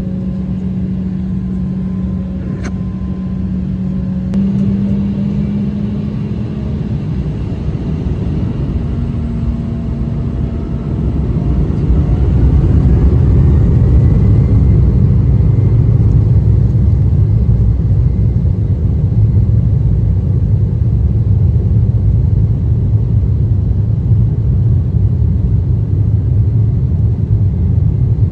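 Embraer E190's twin GE CF34-10E turbofans spooling up for takeoff, heard in the cabin: a steady hum steps up in pitch, a whine rises about ten seconds in, and the engine rumble grows louder about twelve seconds in and holds as the jet rolls down the runway.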